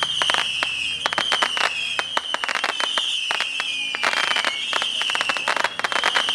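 Fireworks crackling: a dense run of sharp pops and snaps, heard over a high, repeating tone that dips slightly in pitch and restarts about once every second.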